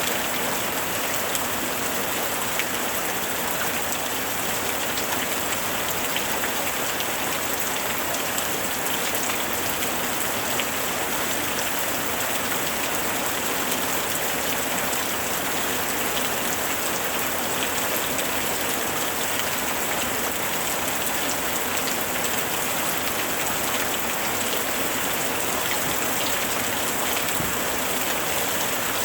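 Steady rain, with many single drops ticking on a surface.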